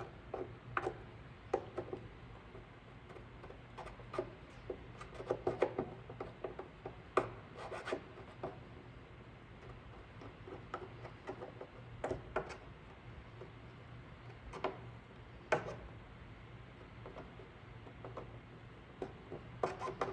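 Irregular scraping and light tapping of a hot plastic-welding iron tip worked over an ATV's plastic body panel, smoothing melted plastic over embedded repair staples, with a low steady hum underneath.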